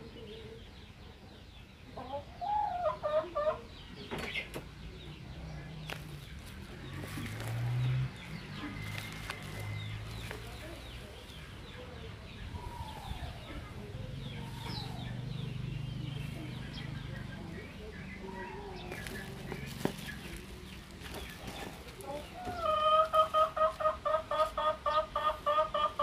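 Birds calling in the background, with short falling calls through the middle. Near the end a loud, fast run of repeated calls begins, about four a second.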